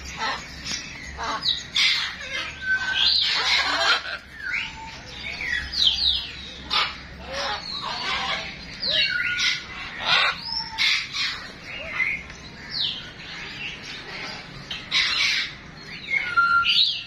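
Caged parrots squawking and chattering: many short, harsh calls with quick up-and-down pitch sweeps, overlapping one another without a break.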